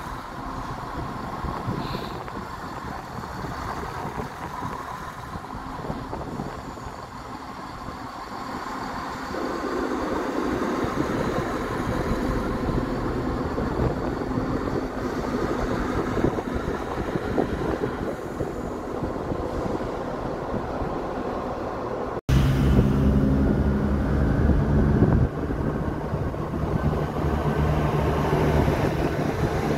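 Chiltern Railways diesel multiple unit moving past the platform, a steady rumble that grows louder about a third of the way in. After a brief break about two-thirds through, a loud, deep diesel engine note close by as the unit's cab draws alongside.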